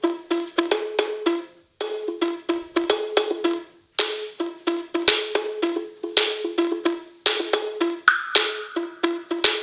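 A Samsung Galaxy S7 stock ringtone playing from a tablet's speaker: a quick rhythm of wood-block-like knocks on two alternating pitches, repeating in phrases of about two seconds with short breaks between them.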